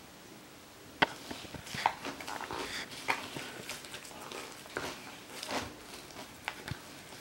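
Hand squeezing and kneading damp homemade kinetic sand (sand mixed with cornstarch, water and oil) in a plastic tub: irregular wet squishing and gritty crackling. It starts about a second in with a sharp click.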